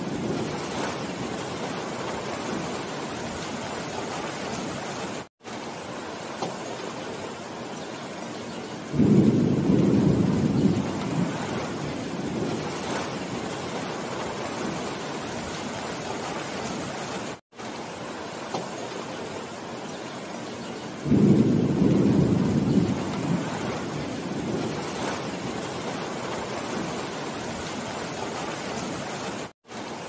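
Heavy rain falling steadily on forest foliage. A low rumble of thunder swells up suddenly twice, about nine and twenty-one seconds in, each lasting a couple of seconds. The sound cuts out for a split second three times.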